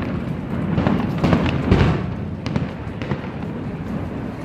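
Fireworks going off: deep booms in the first two seconds, then sharp crackles.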